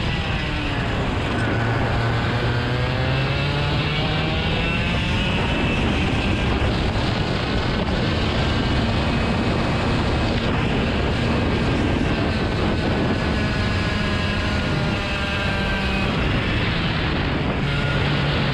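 An engine running throughout, its pitch slowly sinking and rising as its speed changes, over a steady rushing noise.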